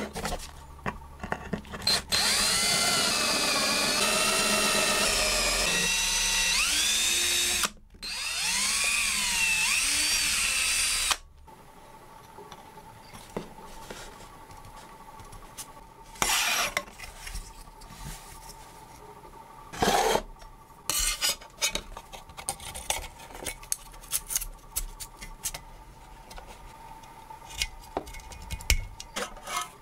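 Handheld power tool's electric motor running at changing speed, pitch rising and falling, in two runs of several seconds with a short stop between. After it stops, quieter scattered knocks and clicks of the saw blade and wooden handle being handled.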